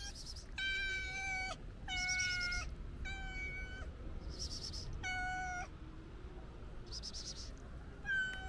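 Calico cat meowing repeatedly, about five even-pitched meows of under a second each with short gaps between them: a hungry cat asking for food.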